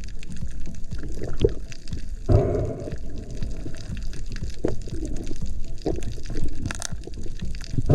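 Sea water sloshing and gurgling around the camera, with a few short knocks and a louder splash about two seconds in.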